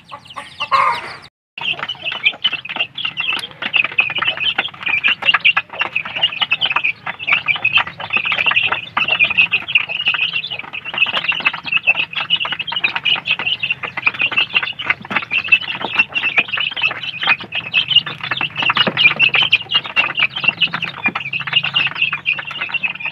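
A flock of young kampung chickens cheeping continuously in high, rapid peeps while crowded around a feeder, with many short clicks mixed in.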